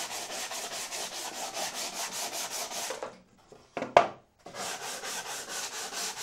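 Sandpaper on a wooden sanding block rubbed back and forth along the edge of a wooden cabinet door, in quick even strokes of about five a second, smoothing away saw marks. The strokes stop for about a second, a single sharp knock comes about four seconds in, and the sanding resumes.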